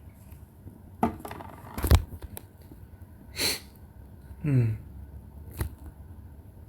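Handling noises close to the microphone: a few sharp clicks, a louder knock about two seconds in, a short breathy hiss, and a brief low hum from a voice that falls in pitch.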